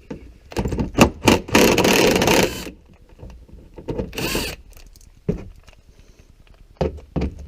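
Cordless drill running in short bursts: a long one of about a second, then a brief one with a rising whine as the motor spins up, with clicks and clatter of tools before them.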